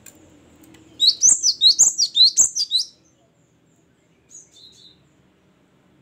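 Cinereous tit singing: a loud, fast run of repeated high two-note phrases lasting about two seconds, then a couple of faint short calls near the end.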